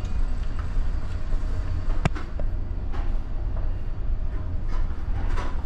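Steady low rumble of a tanker's engine and machinery heard on its bridge while the ship is under way, with one sharp click about two seconds in.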